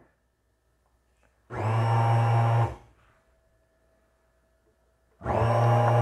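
Mallory Magnific 800 W blender motor run in pulses: a burst of about a second, a pause, then running steadily again near the end. It is straining against thick carrot-cake batter that it cannot turn.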